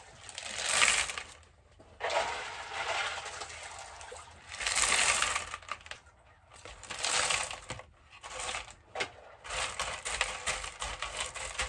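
Leca clay pebbles rattling and clattering as they are poured by the scoopful into a pot. There are four or five pours about a second long with short pauses between, then shorter rattles near the end as the pebbles are settled in by hand around the roots.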